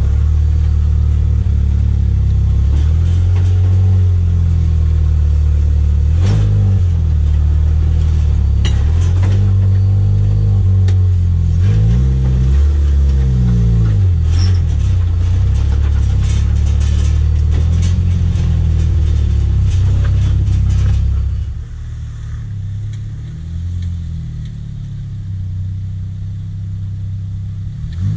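Jeep Wrangler engine, said to be freshly rebuilt, heard from inside the cab while driving; its pitch rises and falls several times as it accelerates and eases off. About three-quarters of the way through the sound drops to a quieter engine heard from a distance.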